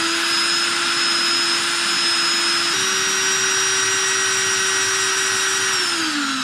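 DeWalt cordless drill running, spinning a brass cartridge case in a shell holder against a polishing cloth to wipe off Nev-R-Dull. A steady motor whine that steps up a little in pitch about three seconds in and winds down near the end.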